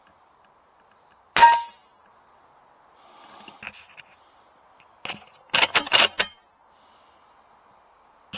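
An air rifle shot heard as a single sharp metallic clang with a short ring about a second and a half in, then a quick run of clicks and knocks near six seconds.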